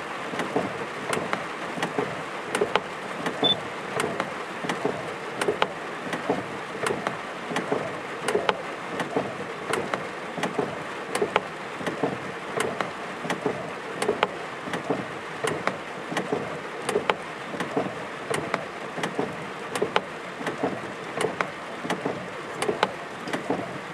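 Steady rain in a thunderstorm, hissing, with frequent sharp taps of drops hitting a hard surface close to the microphone.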